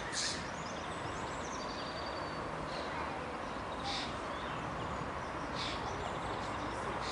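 Outdoor ambience: a steady background hiss with a handful of short high bird chirps, one every second or two.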